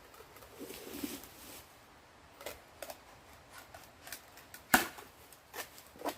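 Scattered light knocks and clicks with a brief rustling scuff about a second in, and one sharp knock, the loudest, about three-quarters of the way through.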